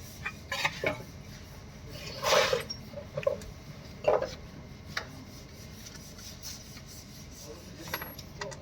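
Scattered metallic clinks and knocks of a car clutch pressure plate, clutch plate and tools being handled and seated against the flywheel, with a louder scraping clatter about two and a half seconds in.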